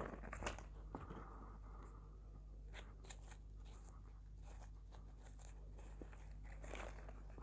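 Faint rustling and small clicks of satin ribbon being handled and wrapped around a hair bow, a little louder at the very start, over a low steady hum.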